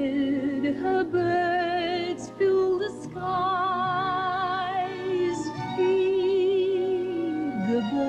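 A woman singing a slow, tender ballad in long held notes with a wide vibrato, over soft instrumental accompaniment.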